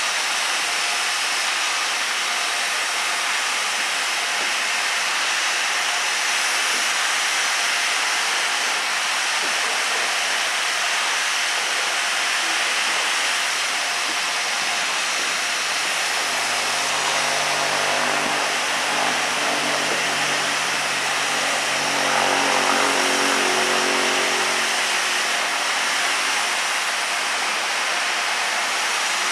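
Steam locomotive standing with steam blowing off in a loud, steady hiss. A lower hum joins it about halfway through and swells a little before easing.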